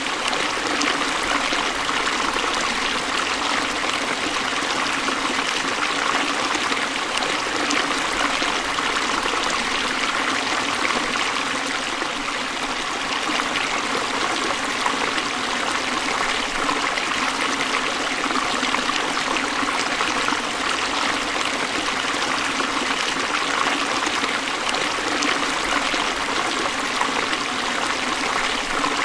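Forest stream flowing and splashing over rocks, a steady rush of water.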